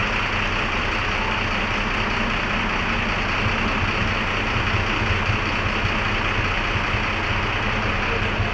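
Bus engine idling steadily, an even low rumble.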